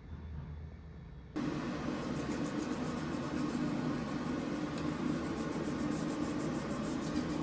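A steady machine hum with a hiss switches on abruptly about a second and a half in and runs on evenly.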